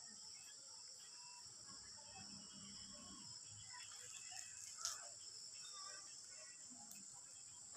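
Faint, steady high-pitched chorus of insects, such as crickets, with a single short click about five seconds in.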